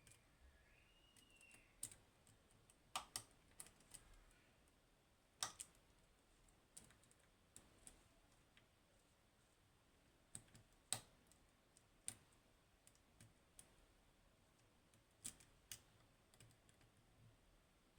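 Lock pick and tension tool working the pins of a Goal Z, a seven-pin Japanese pin tumbler lock with spool drivers: small, sharp clicks and ticks, irregular and spaced out with quiet gaps between them, as pins are lifted and set.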